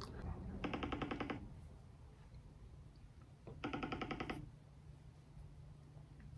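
Phone ringing on speaker while a call is placed: a short buzzy ring tone twice, about three seconds apart.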